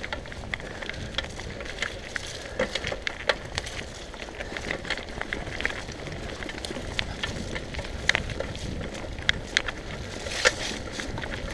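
Mountain bike rolling fast over a rough dirt and gravel trail: a steady low rumble from the tyres, with frequent irregular clicks and rattles as the bike runs over stones and bumps.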